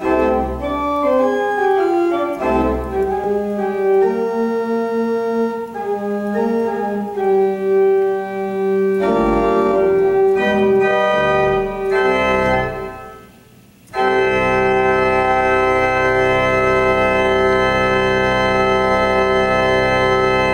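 Two-manual organ with pedals playing the closing bars of a piece: moving chords over low pedal notes, a short break about 13 seconds in, then a loud final chord held for about six seconds and released at the end.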